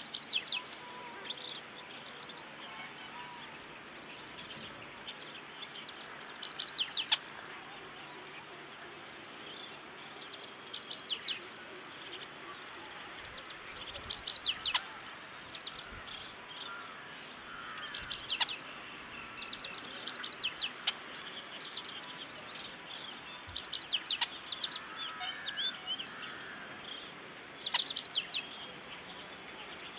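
Small birds chirping: quick bursts of two to four high notes, each falling in pitch, repeat every few seconds over a steady high hiss.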